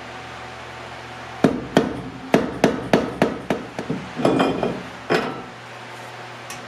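Hammer tapping a punch against the spindle nut of a Honda CRX's rear wheel hub: about nine sharp metal strikes, roughly three a second. Metal clinking and a single clank follow as a drilled and slotted brake rotor is slid over the hub studs.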